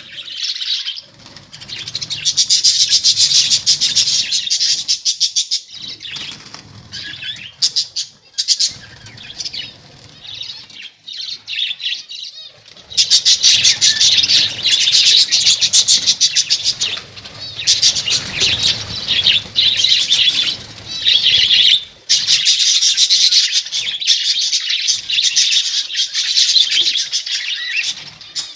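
A colony of budgerigars chattering: dense, rapid, high chirping in loud stretches of several seconds, broken by brief quieter lulls.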